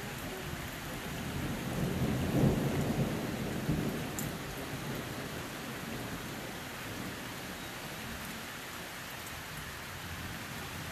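Thunder rumbling low, swelling about two seconds in and fading away by about five seconds, over a steady hiss.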